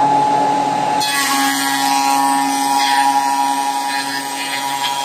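Wood round-rod milling machine running under load, its cutter heads milling a wooden board into broom handles: a loud, steady whine of constant pitch over the noise of the wood being cut.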